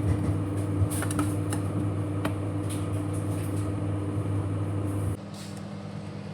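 Microwave oven running with a steady electrical hum and a few faint ticks, cooking a mug cake. About five seconds in the hum drops to a quieter, lower hum.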